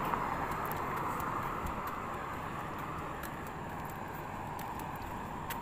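Footsteps on a paved road at a steady walking pace, about two steps a second, over the steady noise of road traffic, which dies down a little over the first couple of seconds.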